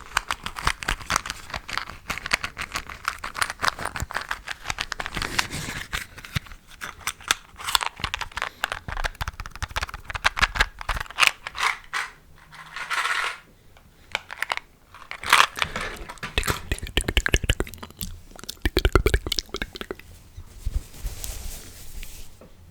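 Close-miked ASMR triggers: rapid, dense crackling and clicking with rustles, and a couple of short hisses.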